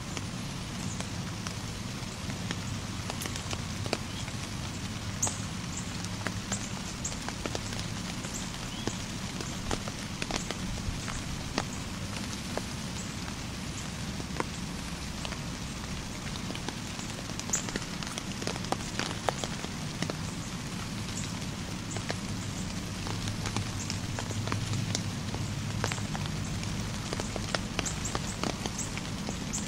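Outdoor background noise: a steady low rumble with many scattered sharp ticks and pops throughout.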